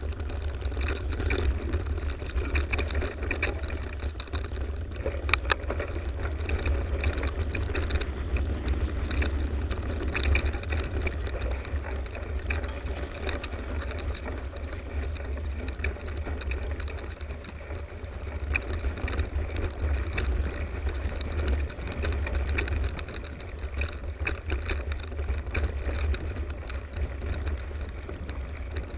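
A mountain bike riding over a dirt forest trail: tyre noise on the dirt and the bike rattling, with scattered clicks and knocks over bumps and a steady low rumble throughout.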